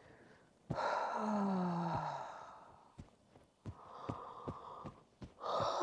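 A woman breathes out in a long audible sigh that falls in pitch, then breathes out again more softly, with light taps of her fingertips on her shoulders in between.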